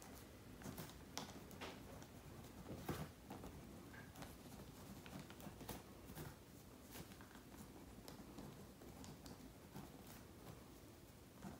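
Faint scratching and light tapping of a pen writing on brown paper, in short irregular strokes.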